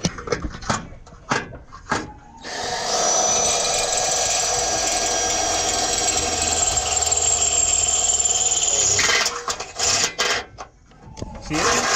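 Cordless power drill running steadily for about six and a half seconds, starting about two seconds in, drilling a hole through a metal bar behind the grille. A few clicks and knocks come before and after it.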